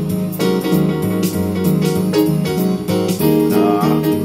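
Digital keyboard played in a piano voice: continuous two-handed chords and runs.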